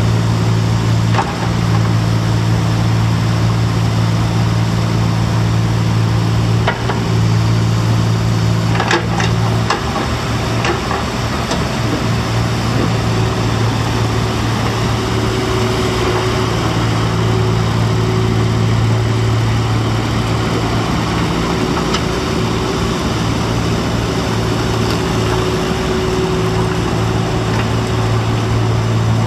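Kubota KX040-4 mini excavator's four-cylinder diesel engine running steadily as the machine swings and works its boom and bucket. A few clanks come about nine seconds in, and the engine note wavers for several seconds after them before settling again.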